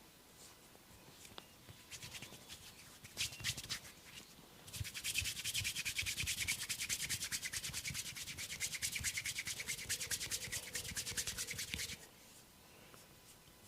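Rapid scratching and rubbing on a person's hair and scalp during a head massage. A few scattered strokes come first, then from about five seconds in a steady run of quick, even strokes that stops abruptly about two seconds before the end.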